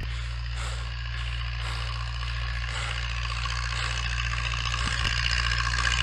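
Zetor 7011 tractor's four-cylinder diesel engine running steadily and getting slowly louder as it approaches.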